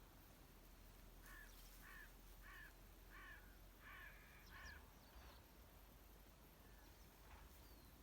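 A crow cawing faintly, about six short caws in a quick, even series starting about a second in.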